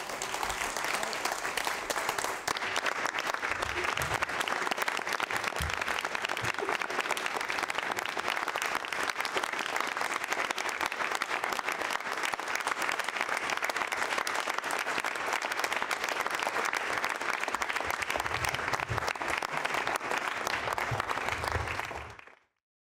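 Audience applauding, steady and dense for about twenty seconds, then cutting off suddenly near the end.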